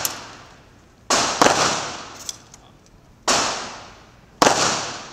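Three gunshots from other shooters on an outdoor firing range, coming about a second in, just past three seconds, and just past four seconds, each a sharp report dying away over about a second.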